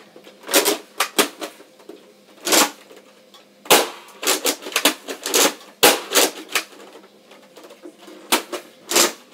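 Nerf Zeus blaster being handled: an irregular run of sharp plastic clicks and clacks, with short pauses between clusters.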